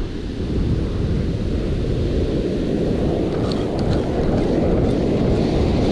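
Wind buffeting the microphone over the steady wash of surf breaking and running up a sandy beach.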